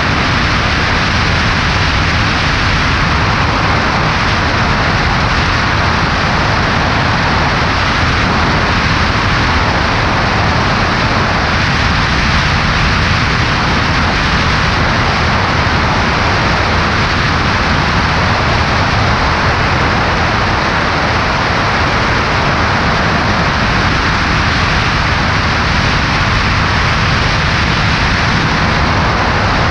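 Cessna 140A in flight heard from a wing-mounted camera: a steady rush of wind over the microphone with the engine's low drone beneath it.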